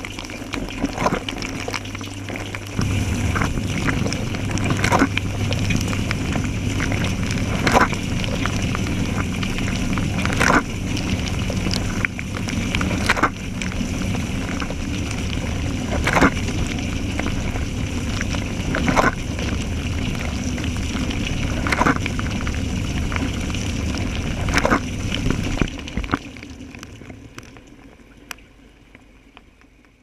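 Dishwasher wash cycle heard from inside the tub: the circulation pump hums steadily under the hiss and splash of water spraying over racks and plates. A sharp splash comes about every three seconds as the spray sweeps past. The sound fades out over the last few seconds.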